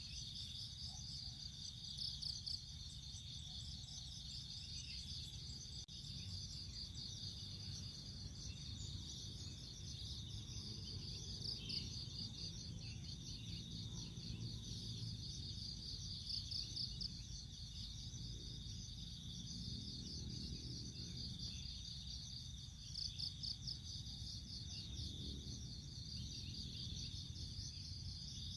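Crickets trilling in a steady high chorus of rapid pulses over a low rumble. A faint low buzz of honey bees in flight swells about a third of the way in and again about two thirds in.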